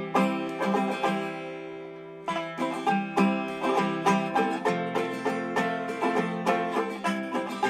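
Instrumental break of an acoustic folk song: plucked strings picking out a tune, with a chord left ringing and fading for about two seconds near the start before the picking resumes.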